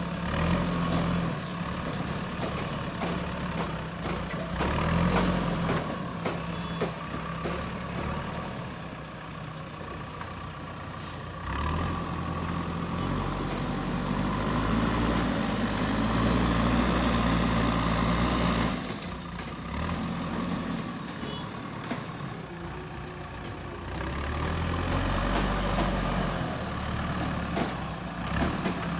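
JCB backhoe loader's diesel engine running and revving up under load several times, the longest and loudest stretch about twelve to nineteen seconds in, dropping back to a steadier idle in between, as it works digging and loading soil.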